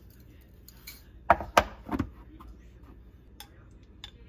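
A metal spoon tapping three times against the rim of a small glass bowl in quick succession, knocking chili flakes off. Two faint clicks follow near the end.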